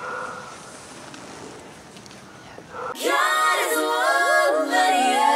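Faint background noise, then about three seconds in a cappella vocal music starts suddenly, with sung notes held and sliding between pitches: the opening theme of the show.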